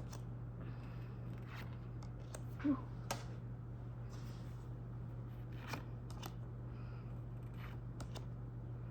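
Pokémon trading cards and foil packs being handled: faint scattered clicks and short rustles, over a steady low hum.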